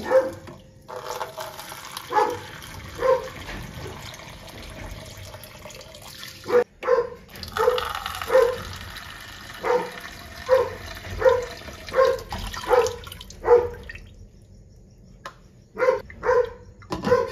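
A dog barking over and over, one short bark about every second with a brief pause near the end. Under it a kitchen tap runs into a metal rice cooker pot, stopping partway through.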